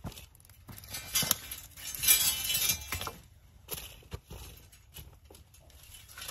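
Irregular metal clinks, rattles and knocks from woven page wire fencing being handled and strung, loudest a second or two in.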